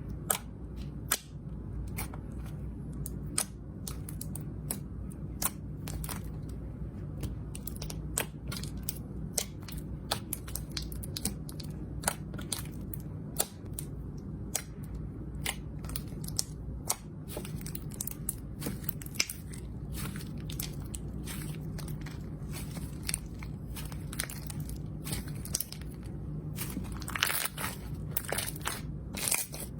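Slime being squeezed and kneaded by hand: a continuous run of sharp crackles and pops, thickest near the end, over a steady low hum.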